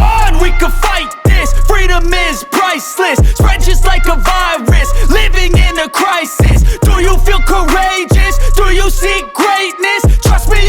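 Hip hop music with heavy, deep bass notes that slide down in pitch as they start.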